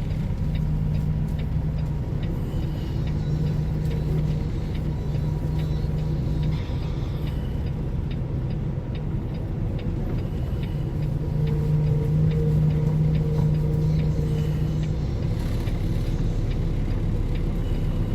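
Tractor-trailer's diesel engine running at low speed while the rig is slowly reversed, heard from the cab; the engine note swells twice as the driver gives it more throttle, once early and again in the second half.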